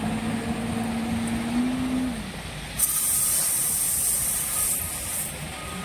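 Heavy machinery running at a stone-crushing and loading site. A steady droning tone holds for about two seconds, rising slightly before it stops. About three seconds in, a loud hiss starts and lasts about two seconds.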